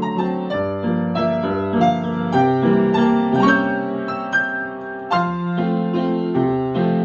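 Grand piano playing a Viennese waltz: melody notes over struck chords and bass notes, each ringing on after it is struck.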